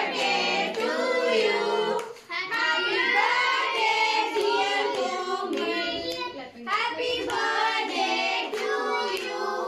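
Group of children singing a birthday song together in chorus, with hand clapping.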